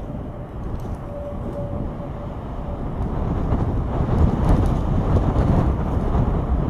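Low, rumbling roar of a large tornado, steady at first and growing louder about three seconds in.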